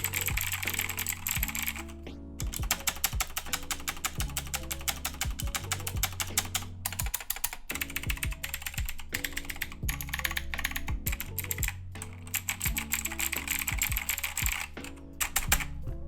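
Fast typing on a loud mechanical keyboard fitted with pudding keycaps: a dense clatter of keystrokes, pausing briefly a few times.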